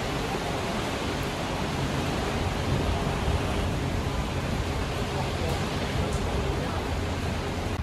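Steady hiss of rain mixed with the low, even hum of a standing MTR Dalian diesel locomotive's engine idling.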